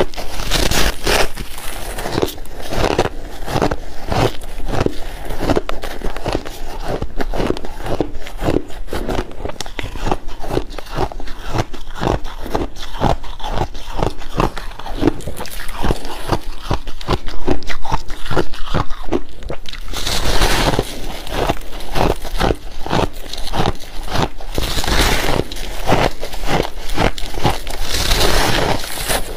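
A person chewing big mouthfuls of soft crushed ice close to the microphone: a fast, even run of crunching chews, with a few louder, longer crunches in the last third.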